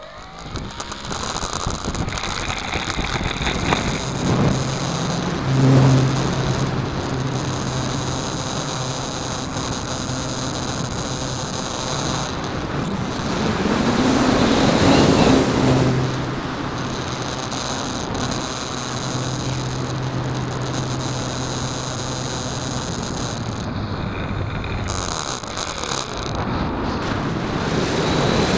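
Hype Edge 540 RC model aerobatic plane heard from on board: its electric motor and propeller run with a steady whine through the takeoff and flight, swelling and easing with the throttle, with air rushing over the onboard microphone. It is loudest about six seconds in and again around the middle.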